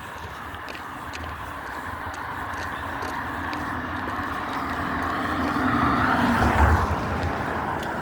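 A car approaching and passing by, its road and tyre noise building steadily to a peak about six and a half seconds in, with a faint whine that drops slightly in pitch as it goes by.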